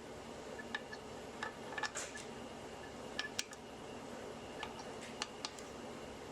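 Light metallic clicks and clinks of hand tools against transmission parts, coming irregularly about once or twice a second over a faint steady hum.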